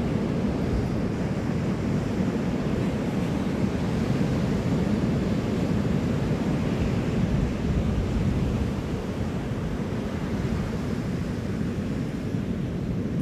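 Ocean surf breaking and washing in, with wind buffeting the microphone as a steady low rumble.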